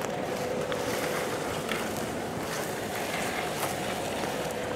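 Pickup truck engine idling with a steady hum, and a few soft footsteps on dry grass.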